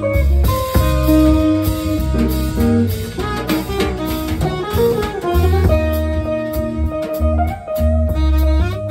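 Small jazz band playing live: hollow-body electric guitar and saxophone over electric bass and drum kit. Strong bass notes and held melody notes, with cymbal and drum hits.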